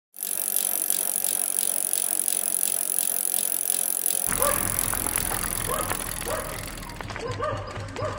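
A bicycle freewheel ticking rapidly over a steady hiss. About four seconds in, a low rumble and short rising squeaks about a second apart join in.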